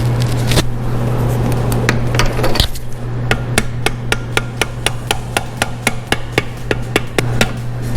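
Hammer tapping on a tool through the access hole of a Subaru EJ253 boxer engine block to drive out a piston wrist pin: a few scattered taps, then a quick run of about three taps a second, over a steady low hum.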